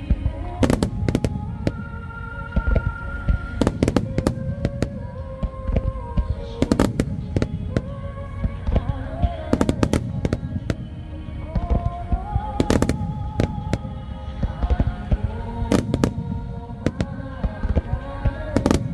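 Large aerial fireworks shells bursting in quick succession: a sharp bang every second or two, often in close pairs, with crackle between. Music with held melody notes plays underneath.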